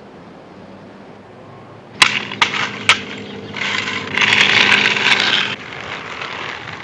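Skateboard clacking down onto a concrete road a few times, then its wheels rolling with a loud hiss on the pavement for about two seconds before cutting off.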